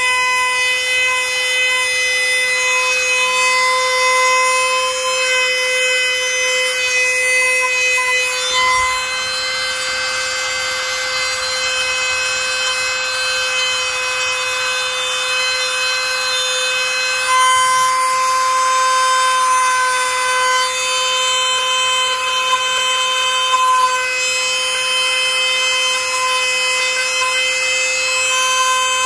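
A small high-speed power tool running with a steady high-pitched whine. A rougher hiss joins in from about nine to seventeen seconds in.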